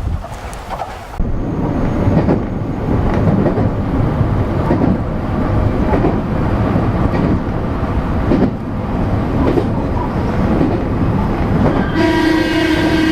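A JR Ako Line train running past close by, its wheels rumbling and knocking over the track. Near the end the train's horn starts to sound.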